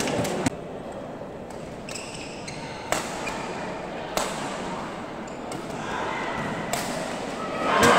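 Badminton rackets striking the shuttlecock: a few sharp, separate clicks over the steady murmur of a spectator crowd, which grows louder near the end.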